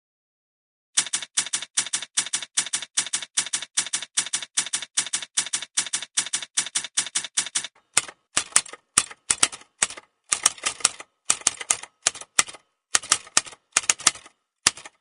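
Typewriter keys striking: a steady run of about three to four strokes a second starting about a second in, then an irregular, faster clatter of strokes from about eight seconds in.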